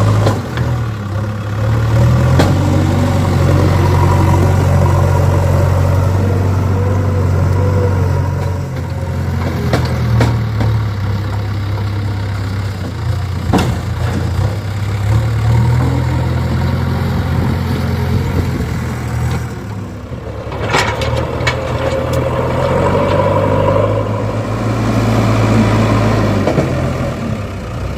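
Diesel engine of a JCB backhoe loader working, its drone swelling and easing as the hydraulics take load. A few sharp knocks and clanks from the bucket, with a short burst of them about two-thirds of the way through.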